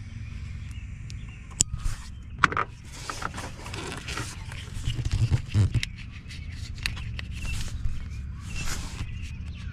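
Tools and parts being handled during a wiring repair: scattered sharp clicks and knocks, with scraping and rustling through the middle, over a steady low hum.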